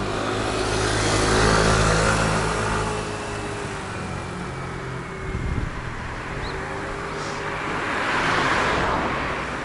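Motor vehicles passing close by on the street: an engine hum swells and fades within the first few seconds, and another vehicle swells past near the end, with wind rumbling on the microphone.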